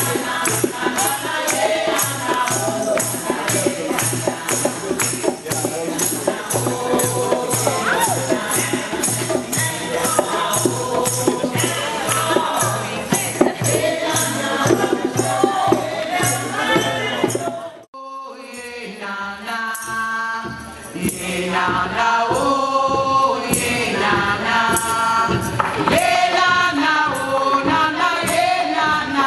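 A group of women singing together over hand drums and jingling percussion keeping a steady beat. About eighteen seconds in the music breaks off sharply, then the singing resumes with lighter percussion and the voices more to the fore.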